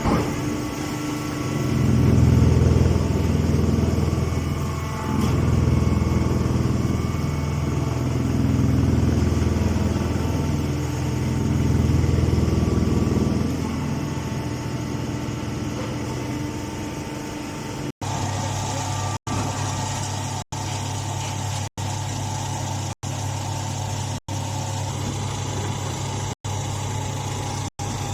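Engine running the mini hay baler. Its level swells and eases several times in the first half, then it runs steadily, with the audio cutting out for an instant roughly every second near the end.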